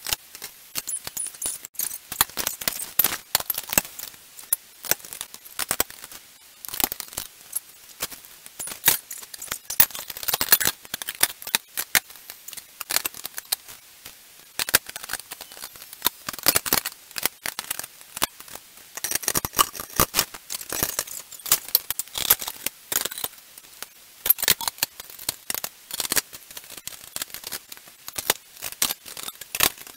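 Loose steel bolts, nuts and washers clinking against each other and against the press's steel frame parts as they are handled, with plastic packaging rustling; many quick, sharp metallic clicks.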